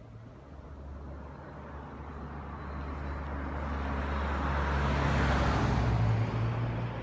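Motor vehicle driving, engine hum and road noise growing steadily louder as it picks up speed, then easing off slightly about six seconds in.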